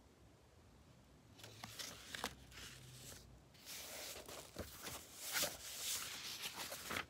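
Rustling and handling noise of a paperback's pages and bedding moved about close to the microphone, starting about a second in and louder in the second half, with a few sharp clicks.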